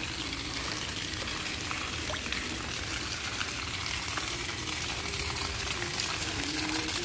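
Rain falling onto a flooded paved walkway, drops hitting the standing water with a steady hiss and many small ticks.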